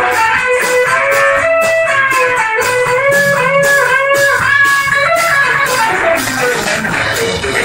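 Live country band playing an instrumental passage: a lead line of held, bending notes over guitars and a steady drum beat.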